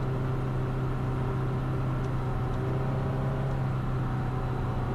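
Ultralight aircraft's piston engine and propeller running steadily on the ground before takeoff, an even hum that holds the same pitch and level throughout.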